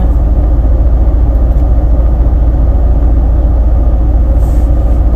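Loud, steady low rumble with no speech over it.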